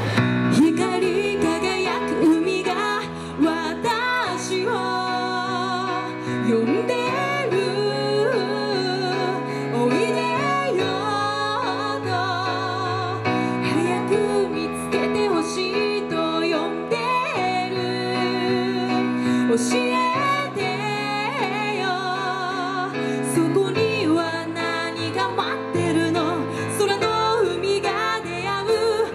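A woman singing a slow melody with vibrato over backing music with sustained bass notes.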